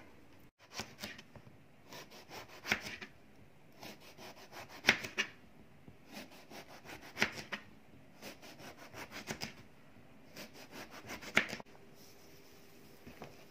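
Kitchen knife slicing a large eggplant into rounds on a plastic cutting board. Each cut is a short run of scraping cuts through the skin and flesh that ends in a sharp knock of the blade on the board, about every two seconds, six times.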